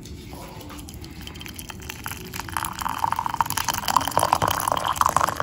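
Hot water poured in a stream into a ceramic mug, starting about halfway through and splashing steadily as the mug fills.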